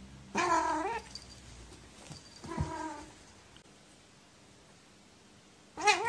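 Domestic cat meowing three times. The first call rises in pitch at its end, and the last begins just before the end.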